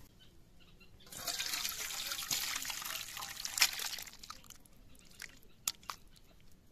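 Fish curry poured from an iron kadai into a steel pot, a liquid pour and splash that runs for about three seconds, then a few light knocks as the last fish pieces slide out and the pan rim touches the pot.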